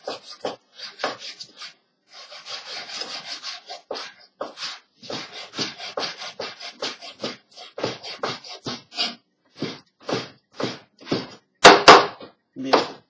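Kitchen knife slicing raw chicken breast into thin strips on a wooden cutting board: a quick run of cutting strokes, about two a second, each ending on the board, with a longer scraping stretch a couple of seconds in. Two sharp, louder knocks of the blade on the board come near the end.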